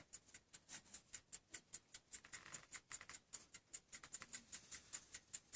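Faint, quick, steady ticking of a c.1890 French carriage-clock movement's lever platform escapement, about five ticks a second.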